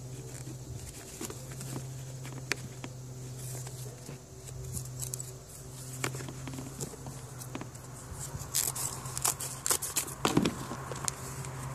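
Scissors cutting end-grain balsa core blocks: a scatter of short snips and clicks, busiest near the end, over a steady low hum.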